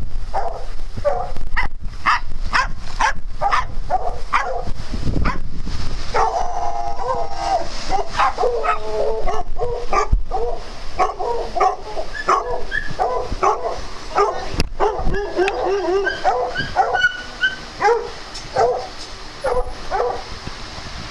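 A group of dogs barking over and over, with higher yips mixed in and several voices overlapping; the barking thins out in the last few seconds.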